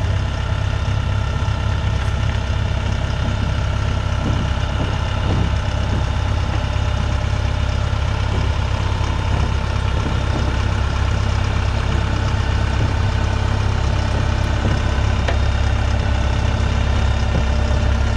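Heavy equipment engine idling steadily with a deep, even drone.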